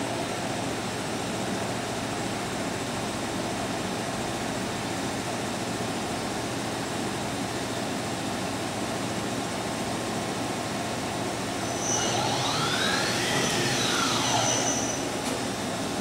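1986 Kuraki KV-1000 vertical machining center running under power with a steady hum. About twelve seconds in, a motor whine rises in pitch and falls back over roughly three seconds.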